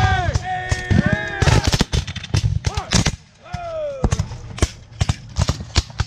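Black-powder rifle-muskets firing blanks: many shots cracking out in quick, irregular succession from about a second and a half in. Men's voices are shouting in long held yells at the start.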